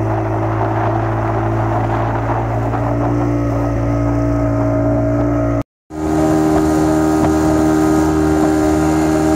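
Speedboat engine running steadily at cruising speed, with the rush of water and wind over the hull. It cuts out for a moment just after halfway, then carries on at a slightly different pitch.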